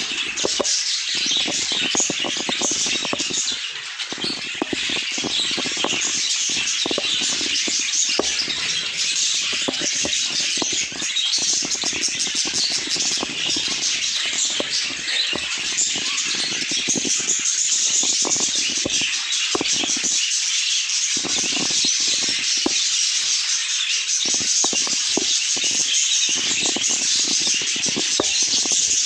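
A flock of budgerigars chattering continuously, many short overlapping chirps and warbles with no let-up.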